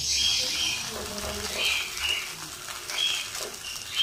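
A dosa faintly sizzling as it fries in ghee in a non-stick pan, with short high chirps repeating every half second or so through it.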